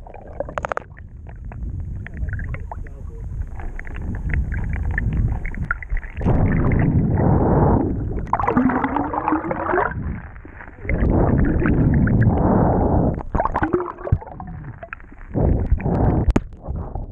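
Muffled rushing and gurgling of lake water around an underwater camera beside a kayak hull, swelling in several surges of a second or two.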